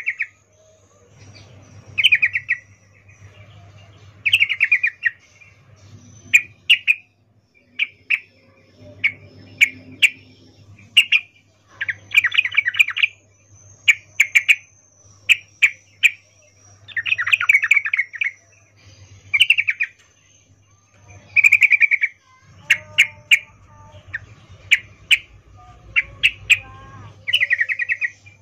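Yellow-vented bulbul (trucukan) calling: short, bubbly chattering phrases every second or two, with sharp clicking notes between them. It is offered as the breeding-condition call of a female calling a male.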